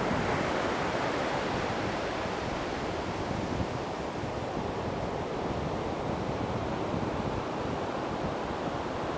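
Steady wash of ocean surf mixed with wind on the microphone, a little louder in the first second.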